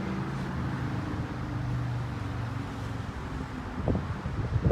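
Road traffic: a vehicle engine's steady low hum, drifting slightly in pitch, with wind on the microphone.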